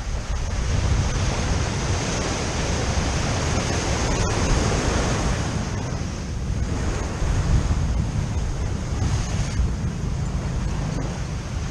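Ocean surf breaking and washing in swells, with wind rumbling on the microphone.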